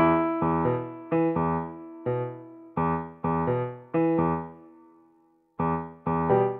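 Background music on a piano-like keyboard: single notes and chords struck at a gentle pace, each one fading out. The notes stop for a moment about five seconds in, then start again.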